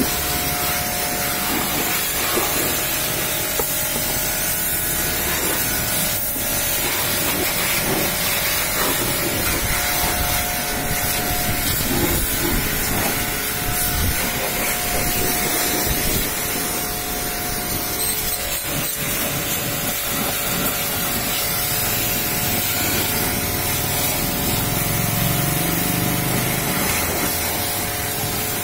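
Pressure washer jet spraying water onto a vehicle's tyre and wheel arch: a steady hiss of spray and splashing, with a steady hum from the washer running underneath.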